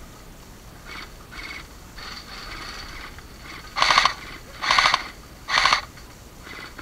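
Airsoft electric gun firing three short full-auto bursts, a little under a second apart, starting about four seconds in. Fainter rustles and clicks come before them.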